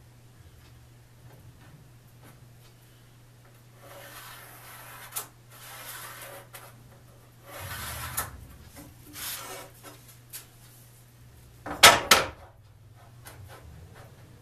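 Handling on a plywood sheet: several scraping, rubbing passes of wood or a tool sliding across the board, a short click, then a loud double knock near the end as something is set down hard on the wood.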